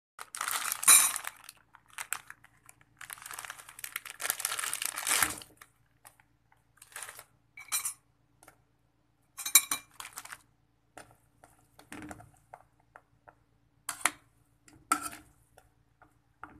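Plastic instant-noodle packet crinkling as it is handled and opened, then a series of sharp clinks and knocks of the noodle blocks and a spoon against a stainless steel pot.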